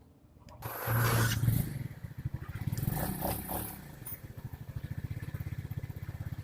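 Yamaha Xeon scooter's single-cylinder engine starts about a second in with a loud burst, then settles into a steady, evenly pulsing idle.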